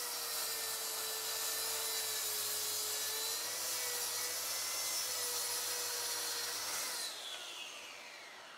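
Track saw cutting across a thick laminated hardwood tabletop, a steady saw whine whose pitch wavers slightly under load for about seven seconds. Near the end the cut finishes and the blade spins down, the pitch falling away.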